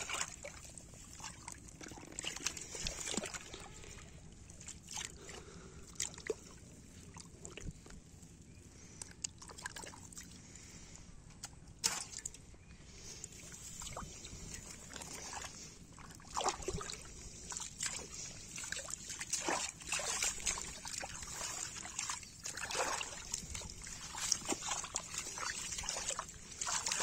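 Wet mud and shallow muddy water sloshing and squelching in irregular bursts as the mud is dug and scooped.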